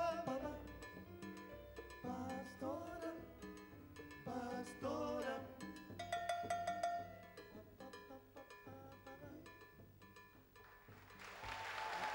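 Live Latin dance orchestra with congas and percussion playing the closing bars of a song, ending on a held note. Audience applause breaks out near the end.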